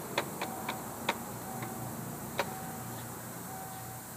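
Several sharp clicks, irregular and mostly in the first half, with short high beeps repeating about once a second over a faint low hum.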